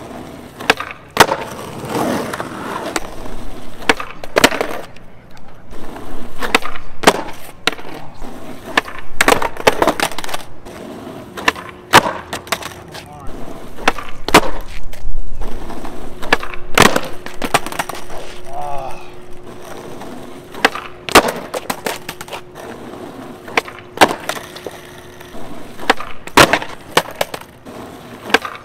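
Skateboard on asphalt: repeated sharp pops and clacks as the board is snapped off the nose, flipped and lands or clatters down on the pavement, with wheels rolling between impacts. These are nollie varial kickflip attempts on flat ground.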